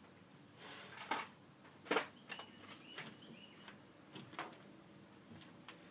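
A few faint, sharp metallic clicks and clinks of hand tools being picked up and set down, the clearest about two seconds in.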